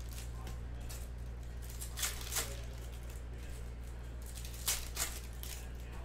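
Foil trading-card pack wrappers crinkling and tearing, and cards handled, in short swishes about two seconds in and again near five seconds, over a steady low hum.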